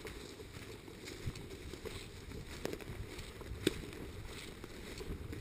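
Wind noise and movement rumble on the microphone, with faint scattered ticks and one sharp click about two-thirds of the way in.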